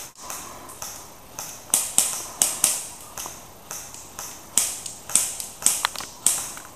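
Airsoft guns firing single shots: a run of sharp, high clicks, about two to three a second at irregular spacing.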